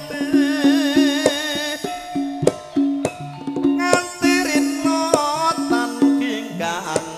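Javanese gamelan music for tayub dancing, played loud through a PA: quick kendang hand-drum strokes over a held low gong-like tone, with a wavering vocal line above in the first two seconds and again around the middle.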